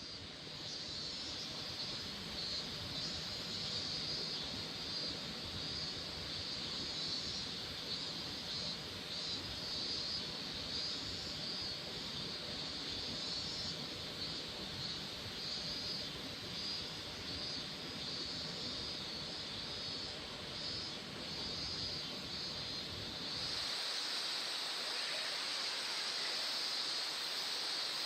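A small stream running over rocks, a steady rushing hiss. About 24 s in, the sound shifts abruptly as the low rumble drops away.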